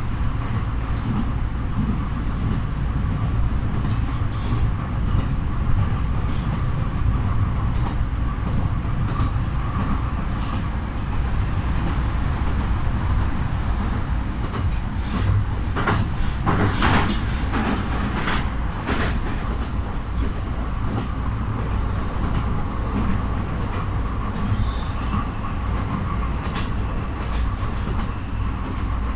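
Inside a moving passenger train: a steady running rumble with a faint hum, and a cluster of sharp clacks from the wheels over the rails a little past halfway.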